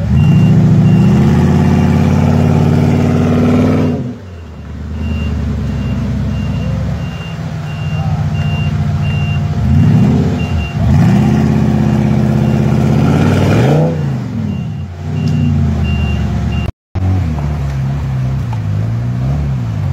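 Off-road 4x4 engine revving hard in repeated bursts, rising and falling in pitch, as it works up a steep riverbank under load. A fast, steady high beeping runs alongside until about two-thirds of the way through. After a sudden cut near the end, another engine runs with a wavering pitch as a buggy drives through river water.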